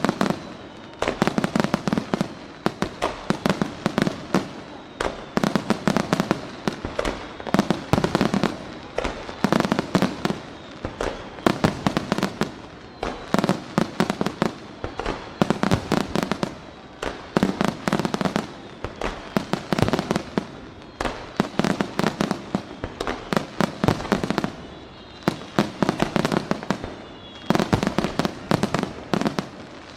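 Aerial fireworks display: rapid barrages of shell bursts and crackling that come in dense clusters about every two seconds, with faint whistles now and then.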